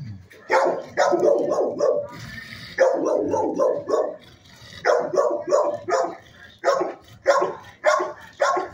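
Dogs barking repeatedly in runs of three or four quick barks, with short pauses between the runs.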